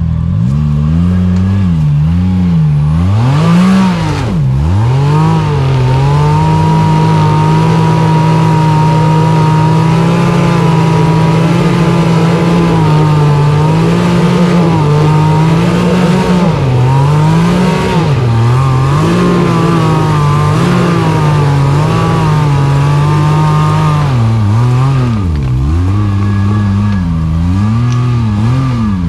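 Side-by-side UTV engine running hard and loud, its pitch held steady for long stretches and swinging as the throttle is worked, with sharp drops and climbs about four seconds in and again near the end.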